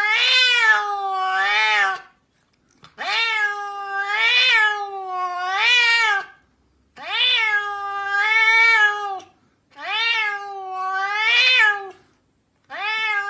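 Grey-and-white domestic cat meowing in long, drawn-out calls, each lasting two to three seconds with the pitch rising and falling two or three times within it. Four calls with short pauses between, and a fifth beginning near the end.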